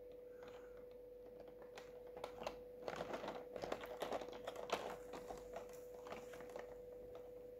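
Faint, light clicks and taps of plastic as a tray of plastic miniatures is handled, mostly in the middle few seconds, over a faint steady hum.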